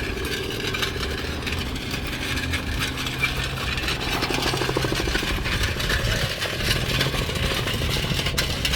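An engine idling, a steady low hum for about the first five seconds, then a more mixed rumble.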